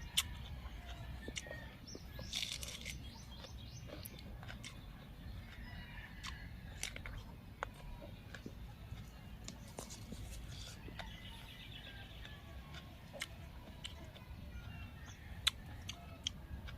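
Chewing and crunching of raw vegetables, heard as scattered short crisp clicks. Birds chirp in the background a couple of seconds in and again midway.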